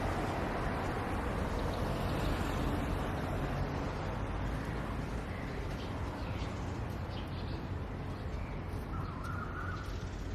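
Steady rumbling background noise, with a few short bird calls starting about halfway through and one longer call near the end.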